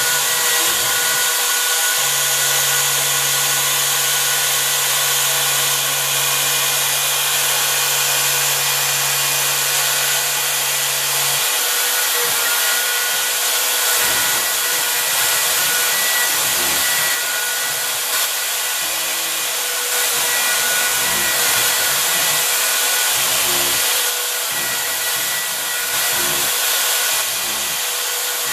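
Router spindle of a home-built CNC machine running steadily at high speed while its cutter carves into a painted wooden block. A low steady hum sits underneath from about two seconds in until about eleven, and irregular low pulses come through later as the machine moves.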